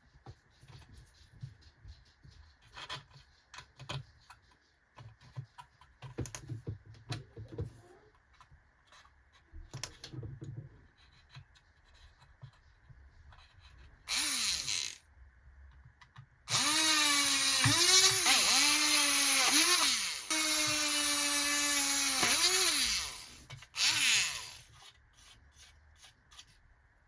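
Small handheld rotary power tool working metal: a short run that spins down, then a longer steady whine whose pitch dips several times as it bites into the work, and a last brief burst. Light clicks and taps of handling come before it.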